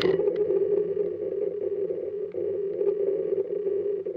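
A steady electric hum from the crashed multirotor lying still on the pavement, its propeller stopped, with a few faint ticks.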